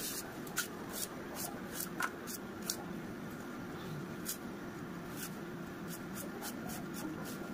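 Crisp, scratchy slicing strokes as a peeled raw vegetable is pushed against a curved floor-mounted kitchen blade (boti) and cut into cubes, about two or three cuts a second with a pause near the middle, over a steady low hum.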